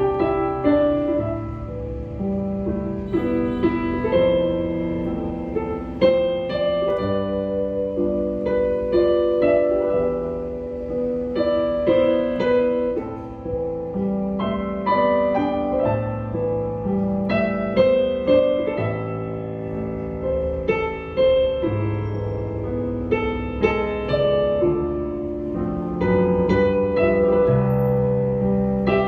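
Yamaha YDP-165 digital piano playing a flowing piece continuously: a melody over bass notes and chords, each note struck and decaying.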